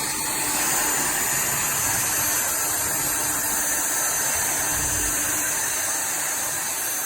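TVTAU T10 Pro cordless stick vacuum running steadily: a rush of air with a thin, high-pitched whine over it.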